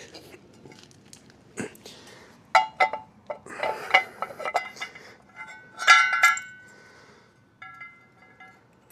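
Small metal parts of an outboard propeller assembly clinking and knocking together as they are handled and fitted. Several strikes ring briefly, the loudest about six seconds in, with lighter clinks near the end.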